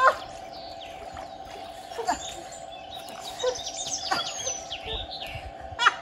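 Small birds chirping and singing, busiest in the middle, over a steady low hum. A few short vocal exclamations from people come near the start, around two seconds in and at the end.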